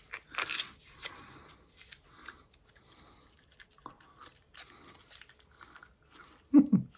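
Wet mouth sounds of someone eating a sour gel candy: scattered smacks and clicks of lips and tongue, with a short low hum or grunt near the end.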